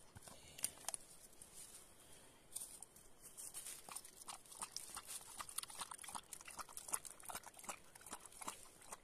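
A dog lapping water: a quick, irregular run of small wet clicks and smacks, which comes faster from about halfway through.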